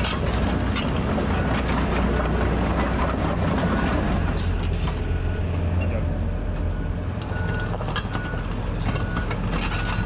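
Excavator's diesel engine running steadily, with irregular metal clanks and rattles.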